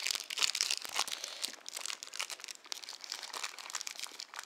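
Foil Pokémon booster-pack wrapper crinkling and crackling in the hands as it is opened, in quick irregular crackles.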